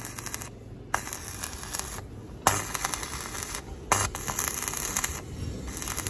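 Electric arc welding on a boat's exhaust pipe: the arc crackles and hisses in bursts of about a second, struck and broken about five times with short breaks between.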